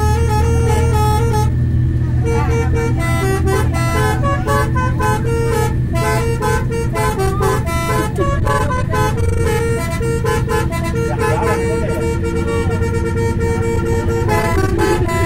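Indonesian bus 'telolet' horn, a set of multi-tone air horns, playing a stepping melody of several notes sounding together, the notes changing every fraction of a second. Under it runs the steady low rumble of the bus's engine.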